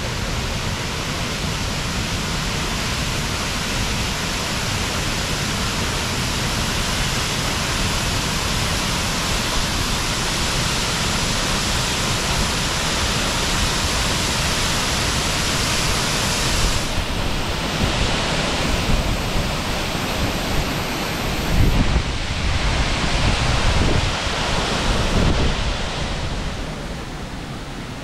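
Waterfall: a steady, loud rush of falling water. Past the middle the hiss thins and a few low thumps come through before the rush fades near the end.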